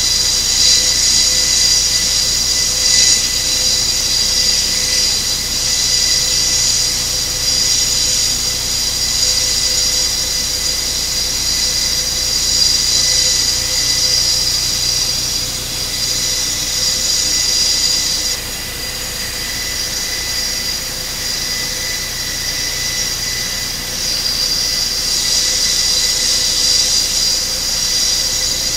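Airbus A400M's four Europrop TP400-D6 turboprop engines running on the ground with propellers turning, a loud steady high-pitched turbine whine over a lower drone. The whine eases a little about 18 seconds in and comes back stronger about 25 seconds in.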